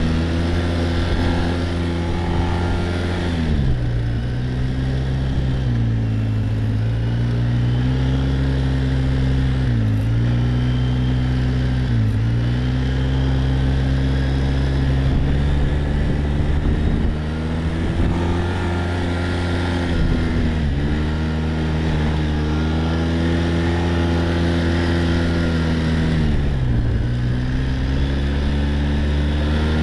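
Quad-bike (ATV) engine running under way, its pitch dropping and climbing back again about six times as the speed changes.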